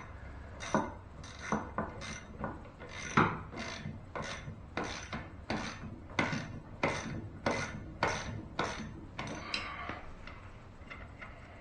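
Ratchet wrench tightening the lower unit housing bolts of an outboard motor: a short rasping click with each stroke, about one and a half strokes a second, stopping about ten seconds in.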